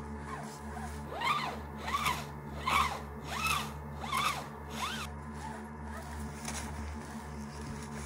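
Rope being sawed back and forth over a snow-covered cabin roof, giving a rhythmic run of short zipping squeaks, each rising then falling in pitch, about six strokes in quick succession before it stops about five seconds in.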